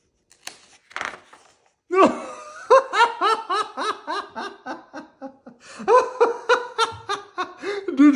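A person's voice laughing aloud in two bouts of rapid "ha-ha" syllables, acting out the book's printed "Ha! Ha! Ha!" and "Hee! Hee!" laughter in a read-aloud. The first bout starts about two seconds in, and the second follows after a short break.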